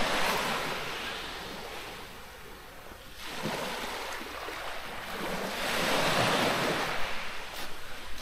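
Small sea waves breaking and washing up a pebble beach. The surf swells and falls back twice, the second wash building about three seconds in and at its loudest around six seconds.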